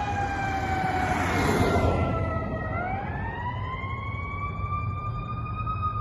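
Fire engine siren wailing in the distance: its pitch slides down over the first couple of seconds, then rises again and holds high. A car passes close about a second or two in.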